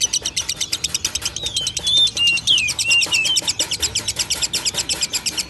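Lovebird singing a long, rapid chattering trill of short, high notes, about a dozen a second, the 'ngekek' song. Near the middle, a few louder whistled notes that slide in pitch cut across it.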